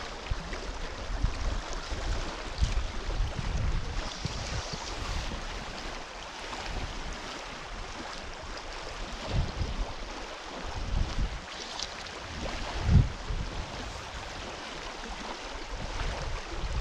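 River water rushing steadily, with gusts of wind buffeting the microphone; the strongest gust comes near the end.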